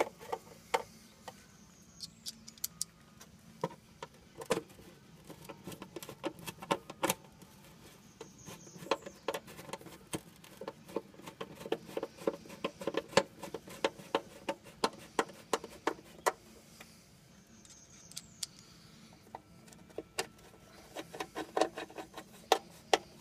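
Screwdriver turning quarter-inch countersunk screws into the tapped steel mounting plate under a café racer seat, making runs of quick small clicks and ticks with short pauses between screws.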